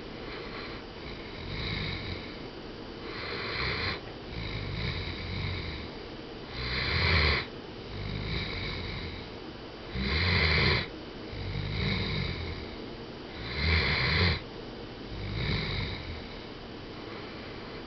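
Great Dane snoring in its sleep, a rhythmic rasping breath every second and a half to two seconds. Three snores about three and a half seconds apart stand out louder than the rest.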